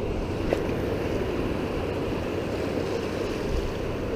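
Steady ocean surf washing onto the beach, with wind rumbling on the microphone.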